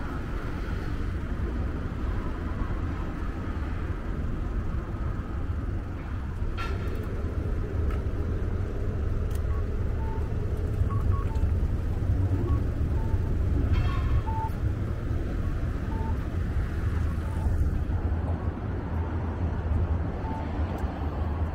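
City street ambience: a steady low rumble of road traffic, with scattered short faint beeps and a couple of brief clatters.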